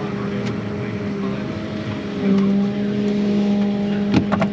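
Steady diesel engine drone heard from inside a harvest machine's cab, growing louder about two seconds in. A few sharp clicks or knocks come near the end.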